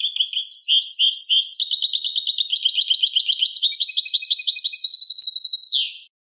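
European goldfinch singing: a long, fast run of twittering notes and trills with no background noise, ending about six seconds in with a falling slur.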